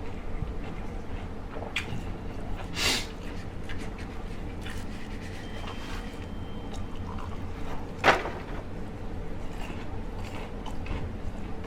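Close-miked eating sounds: faint chewing and mouth clicks picked up by a microphone clipped to the eater's shirt. A short rustle comes about 3 s in, and a single sharp knock about 8 s in is the loudest sound.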